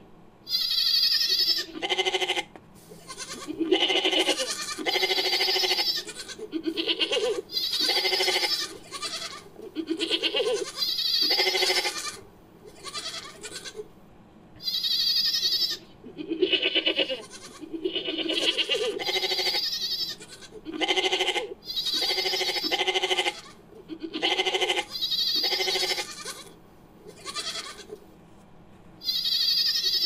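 Goat and ibex bleats edited together into a creature sound effect: a long run of bleating calls, each about a second long, following one another with brief gaps.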